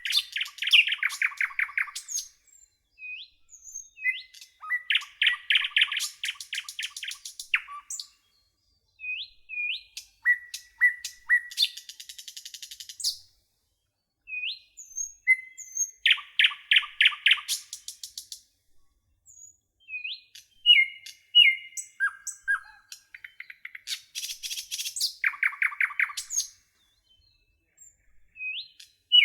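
Songbirds singing: a song of a few short notes that breaks into a fast trill, repeated about every five seconds, with short upward chirps between the songs and a couple of higher buzzy trills.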